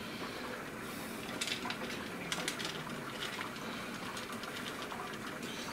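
Wort at a rolling boil in a stainless-steel brew kettle, a steady bubbling hiss, with a few light clicks and rustles as a mesh hop bag is handled over it.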